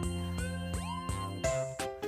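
Background music: plucked guitar notes with sliding, rising pitches about halfway through.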